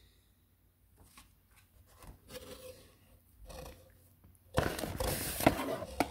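Cardboard box and polystyrene packaging being handled: faint rustles and light knocks, then a loud scraping rub from about four and a half seconds in.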